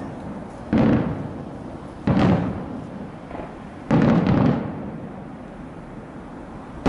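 Aerial fireworks shells bursting: three loud bangs about a second and a half apart, each trailing off in an echoing rumble, and another bang at the very end.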